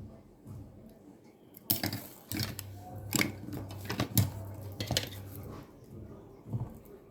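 A small wire stripper clicking and scraping as it is turned around a twisted-pair network cable and the cut end of the jacket is worked off: a run of irregular sharp clicks and rattles.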